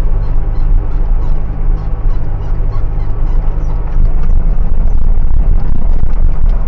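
An engine running steadily and loudly, with a low hum and a light, fairly regular ticking rattle over it; it grows a little louder about four seconds in.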